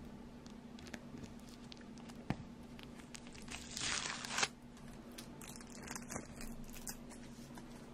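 Bedding fabric rustling as the sheets are handled, with one louder swish about four seconds in and lighter rustles after it. There is a single soft tap about two seconds in, over a faint steady hum.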